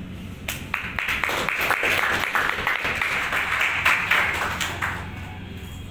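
A small audience applauding. The clapping starts about half a second in and dies away near the end.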